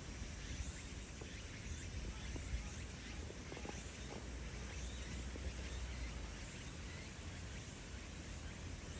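Open-air ambience: a steady low rumble with faint chirps of insects and birds over it.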